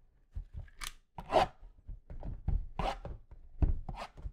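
Basketball trading cards being flipped through by hand: a run of short, irregular swishes and taps as card after card slides off the stack.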